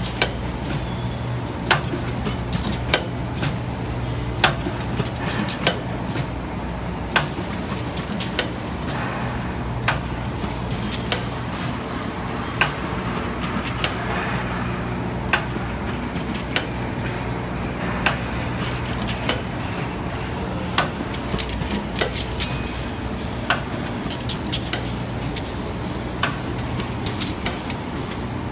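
DPP-80 flat-plate blister packing machine running on aluminium-aluminium cold-form blisters: a steady motor hum under sharp metallic clacks from its stations, about once a second.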